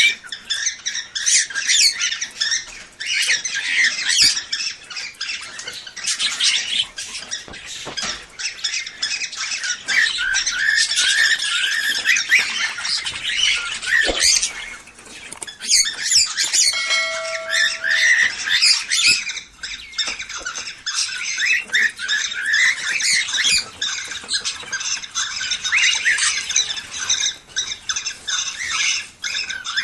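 Many cage birds, cockatiels among them, chattering and squawking without pause, with one short steady whistle a little past the middle.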